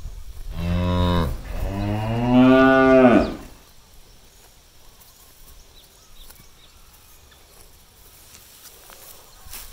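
A cow mooing twice: a short moo, then a longer, louder one that ends about three seconds in.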